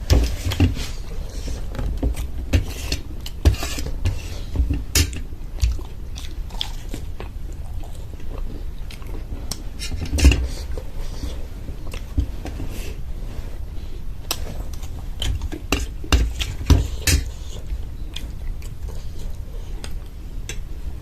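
Person chewing and biting samosa, with scattered clinks and knocks of a plate and utensils.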